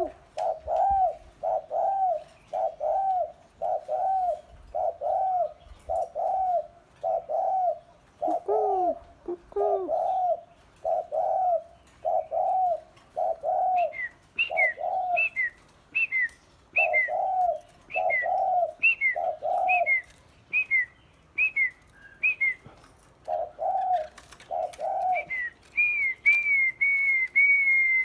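Birds calling in a steady run of short, arched notes, about one or two a second. From about halfway through, a higher two-part call sounds in between them, and near the end it turns into a longer, wavering whistle.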